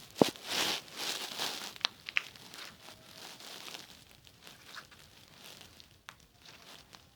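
Crinkling and rustling from hands working slime and its materials, with a few sharp clicks; busiest over the first two seconds, then quieter handling.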